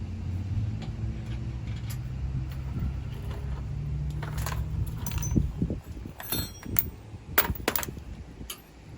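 Metal tools and sway-bar parts clinking and rattling: a cluster of sharp clinks after a low steady hum, one clink ringing briefly, then two louder clicks near the end.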